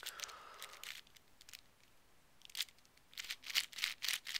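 Plastic clicks and clacks of a Meffert's holey megaminx being turned by hand, sparse at first, then a quick run of clicks in the second half.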